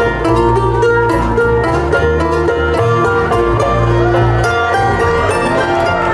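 Acoustic string band playing folk music live: mandolin picking over fiddle and other plucked strings, with a low bass line underneath and sliding notes near the end.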